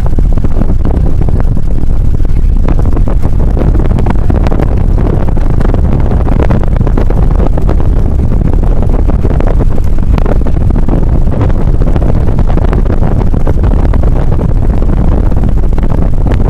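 Car driving through a blizzard: a loud, steady low rumble of road and engine noise with no letup.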